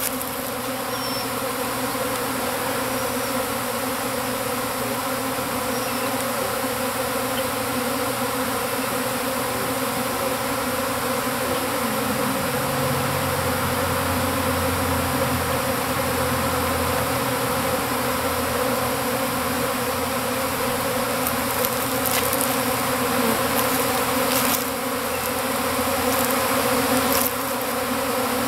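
A swarm of honeybees buzzing in a dense, steady hum as masses of bees fly around and cover the front of a wooden hive.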